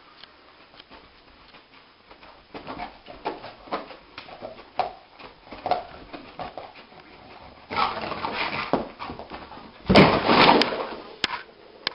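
A sleeping dog dreaming: it whimpers and its paws scrape and paddle on the carpet as it runs in its sleep. About ten seconds in, it scrambles up and bangs into a wall, the loudest sound, followed by a few sharp knocks.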